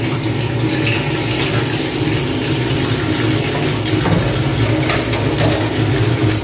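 Kitchen tap running steadily, filling the sink with hot water.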